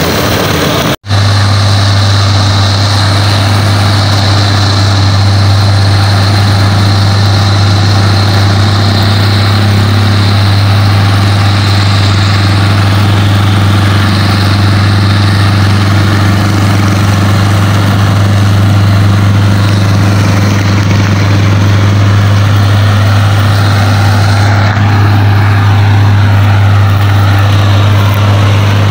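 Fiatagri Laverda 3700 combine harvester running steadily while cutting wheat: a loud, constant low engine drone over dense mechanical noise. The sound breaks off for an instant about a second in.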